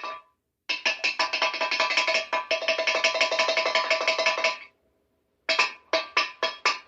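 Metal cup banged against metal prison bars: a fast clattering run of ringing metallic clangs for about four seconds, then a short pause, then slower, evenly spaced strikes, about three a second.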